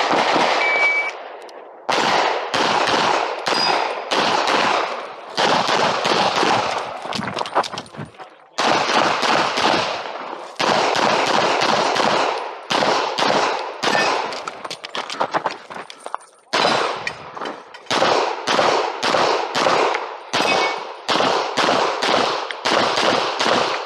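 Semi-automatic 9 mm pistol fired in rapid strings of shots, close to the microphone, with three short breaks between strings.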